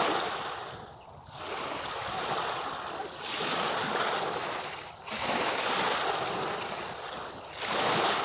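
Sea waves washing onto a beach, the surf noise rising and falling in surges every two to three seconds.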